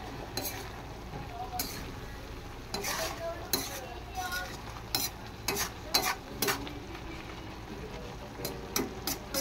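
Metal spoon scraping and knocking against a metal cooking pan while stirring a thick mixture of grated santol, with irregular strokes about a dozen times, over a faint low sizzle of the hot mixture.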